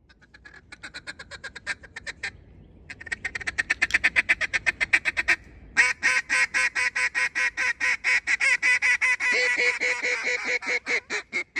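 Mallard duck call blown in three runs of fast, even quacks, about six to eight a second, with short breaks after about two and five seconds. The last run is the loudest and longest and stops abruptly.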